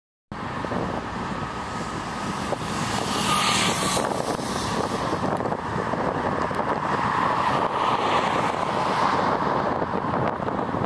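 ShinMaywa US-2 flying boat's four turboprop engines running at high power on its run across the water, heard from a distance as a steady rushing drone with wind noise on the microphone. The sound cuts in just after the start, and its droning tone swells about seven to nine seconds in.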